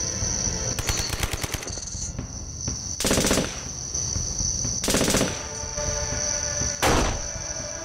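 Gunfire sound effects: a rapid machine-gun burst about a second in, then three short, loud bursts of fire about two seconds apart.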